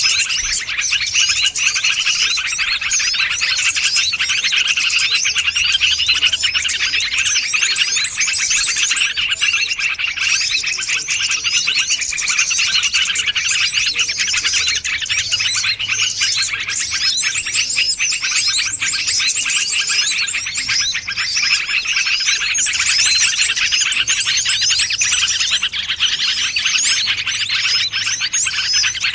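Dense, unbroken chorus of rapid, high-pitched chirps and twitters from many small songbirds, overlapping continuously: a bird-luring (pikat) call for drawing in small wild birds.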